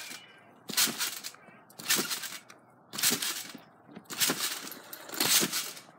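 A scooter rider bouncing on a trampoline: five landings about a second apart, each a short noisy hit of the scooter and rider on the mat and springs.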